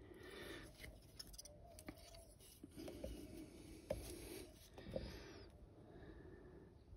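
Very quiet handling sounds of a small plastic model kit being held, turned and worked with a fine paintbrush. Two short light clicks about a second apart fall in the middle.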